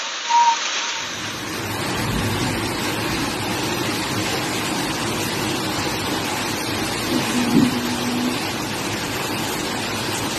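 Hail and rain pelting down in a dense, steady hiss. A brief high tone sounds about half a second in, and a short low tone with a knock about seven and a half seconds in.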